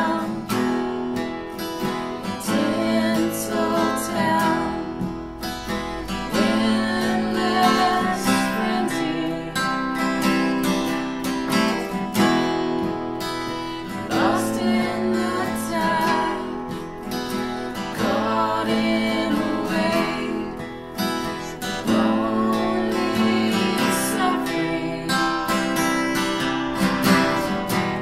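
Two acoustic guitars strummed together in an unplugged song, with singing over them.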